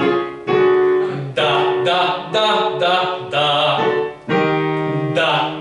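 A man's voice singing a staccato vocal exercise on short "da" syllables, accompanied by a digital piano playing chords, in a run of short phrases.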